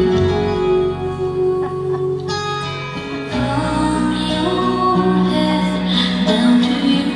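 A song with singing and guitar playing.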